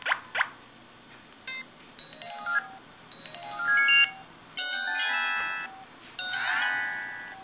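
IM-6100 mobile phone playing a series of short electronic sound effects: two quick falling chirps, a brief blip, then several short synthesized jingles and rising runs of notes, the last a rising sweep.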